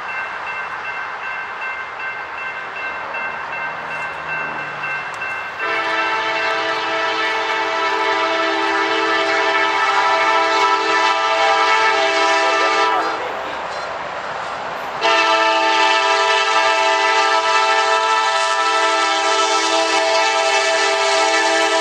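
Freight train noise with a few faint steady high tones, then a diesel locomotive's multi-note air horn sounding long blasts: the first starts about five and a half seconds in and stops around thirteen seconds, and the second begins two seconds later and is still sounding at the end.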